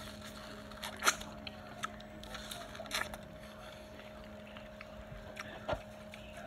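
A man chewing a mouthful of peeled ripe mango close to the microphone, with a few sharp wet mouth clicks, the strongest about a second in, about three seconds in and near the end.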